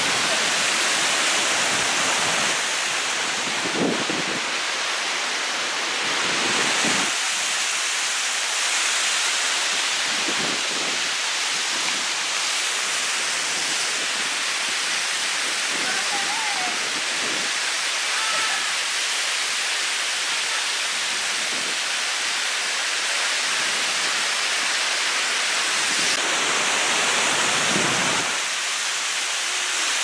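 Cascade waterfall pouring over stepped rock ledges close to the microphone: a steady, loud rush of water.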